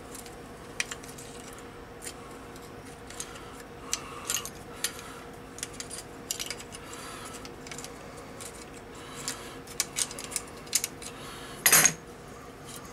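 Small metal parts of a Singer Model 20 toy sewing machine clicking and clinking as the machine is handled and taken apart by hand, with one louder clank near the end.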